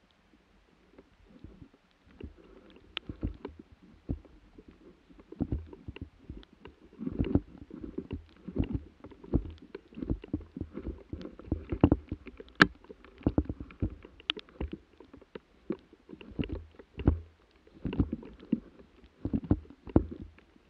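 Footsteps through snow and undergrowth, with handling knocks and rubbing from a rifle carrying a barrel-mounted camera: irregular crunching steps and low thumps that start about two seconds in.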